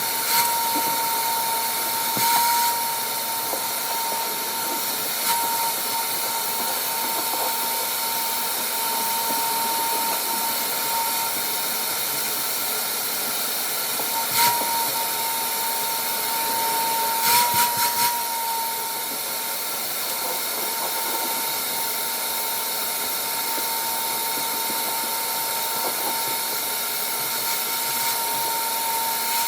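A small motor running steadily with a high, even whine, with a few short knocks along the way.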